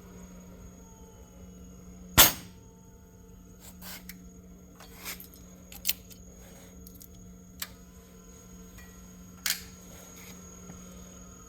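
A handful of sharp metallic clicks and knocks from parts and tools being handled on a workbench, the loudest about two seconds in, over a steady low hum.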